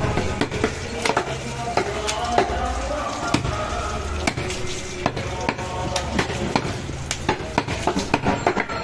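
Butchering goat meat: irregular sharp knocks and clicks of the blade on meat and bone, over faint background voices and a low hum.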